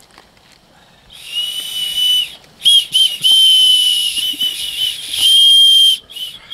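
Two small hand-held whistles blown. After about a second of quiet, one steady high-pitched blast of about a second, then a run of blasts with short breaks.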